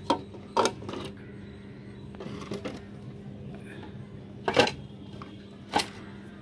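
Sharp knocks and light clatter of the mixer grinder's plastic casing and base plate being handled and set down: four distinct knocks, the loudest about four and a half seconds in, with lighter rattling in between.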